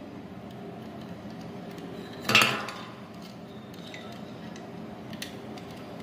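A short metallic clink about two seconds in, followed by a few faint small clicks, from handling the fan controller and its wiring.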